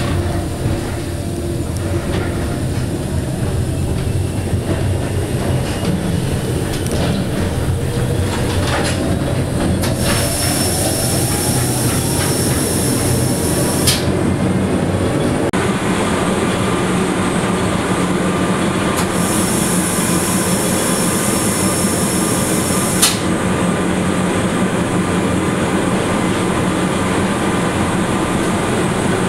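Electric rack-railway railcar heard from inside the car, pulling away: a motor whine rises in pitch over the first half, then the car runs on steadily. Twice a high hiss sounds for about four seconds, starting and stopping abruptly.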